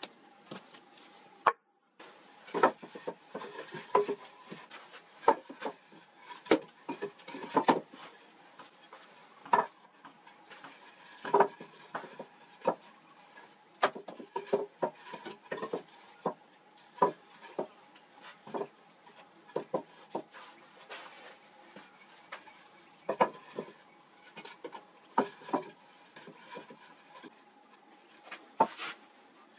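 Short lengths of dead round wood knocking and clattering against each other as they are laid side by side on a pole frame, irregular wooden knocks every second or so. A steady high-pitched insect drone runs underneath.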